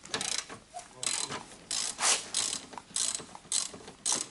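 Hand ratchet wrench being worked in a quick series of short strokes, about two to three a second, undoing a bolt on the car's subframe.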